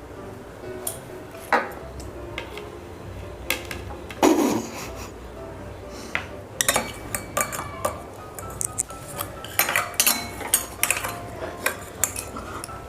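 Spoons clinking and knocking against plates and bowls as rasgullas are scooped up with spoons held in the mouth. There is one louder knock about four seconds in, and a run of quick clinks in the second half.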